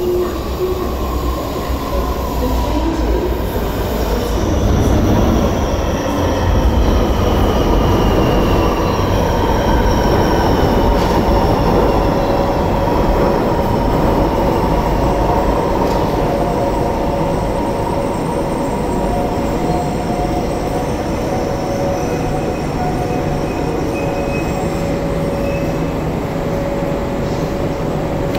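An MTR South Island Line S-train arriving and braking to a stop, the whine of its Alstom Optonix traction equipment falling in pitch as it slows, then steadier tones once it stands. The sound echoes off the station's enclosing walls.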